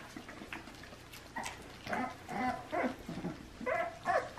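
American bully puppies, about three and a half weeks old, whining in short high cries, about two a second, starting about two seconds in and growing louder near the end. Before the whining, faint clicks of the puppies chewing raw chicken.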